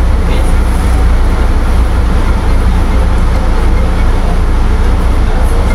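Commuter train's steady, loud low rumble, heard from inside the passenger car.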